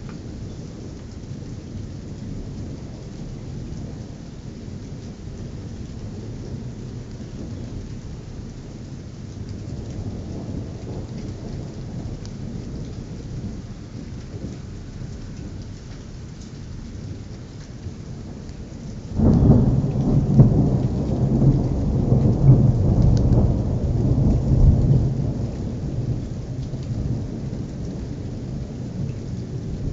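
Thunderstorm with steady rain and low rumbling thunder. About two-thirds of the way in, a sudden loud thunderclap breaks, rumbling for several seconds before fading back.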